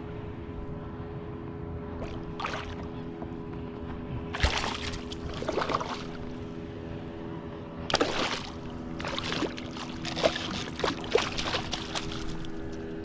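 Water splashing and sloshing around a kayak in several bursts: one about four seconds in, another around eight seconds, then a quicker run of splashes and knocks near the end, over a steady low hum.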